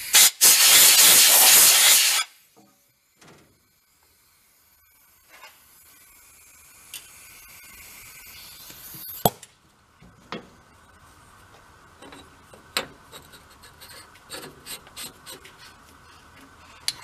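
Compressed-air blow gun blasting for about two seconds, a short puff then a long hiss, blowing dirt out of an air compressor's diaphragm housing. Afterwards there are light clicks and taps of metal parts being handled, with one sharp click about nine seconds in.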